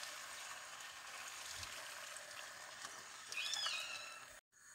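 Beef and potatoes sizzling softly in a steel pot as tomato sauce is poured over them, with a short high squeal about three and a half seconds in.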